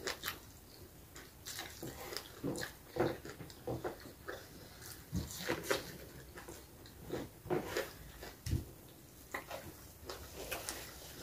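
Close-up eating sounds: biting and chewing corn on the cob and African pear (ube), as a string of soft, irregular crunches and mouth clicks.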